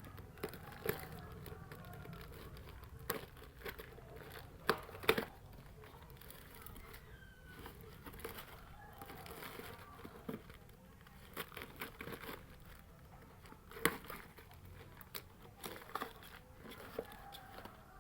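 Scattered clicks, knocks and crinkling of hands and tools at work on a Sanyo SW855XT washing machine while its wash motor is being replaced, with a sharper knock about five seconds in and another near fourteen seconds.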